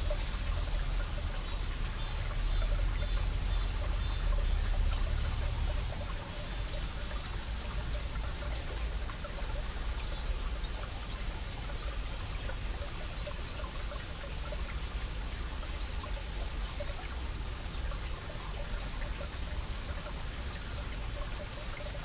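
Small mountain stream trickling over granite rocks, with cicadas buzzing high and steady and a few short bird chirps. A low rumble sits under it and drops away about six seconds in.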